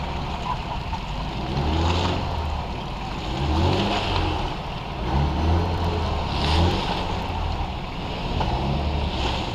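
Jeep engine running and revving in several surges, with bursts of rushing noise swelling at much the same moments.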